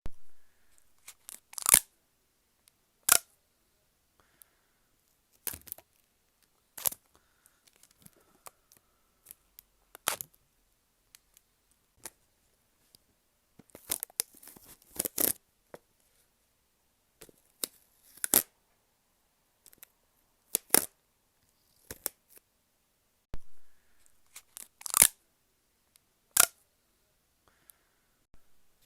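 Sellotape being pulled off and ripped in a series of short, sharp, separate rips, with a denser run of rips about halfway through.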